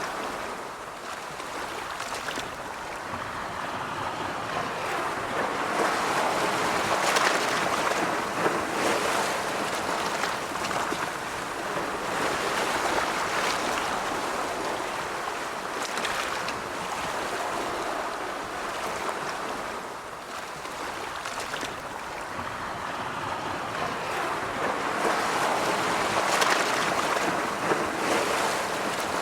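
Sea waves breaking and washing ashore in a continuous rush of surf that swells and eases every few seconds.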